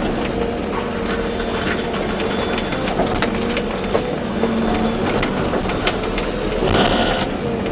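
Volvo EC240B excavator's diesel engine running steadily under load, with a hiss of hydraulics and a few sharp clicks and knocks.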